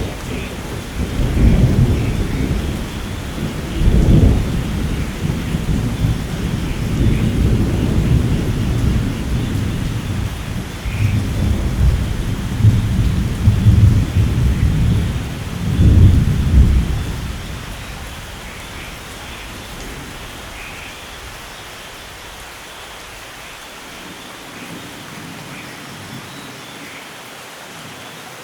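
Thunderstorm: steady heavy rain with long, rolling thunder that swells several times, loudest about four seconds in and again near sixteen seconds. The thunder fades out at around seventeen seconds, leaving only the rain.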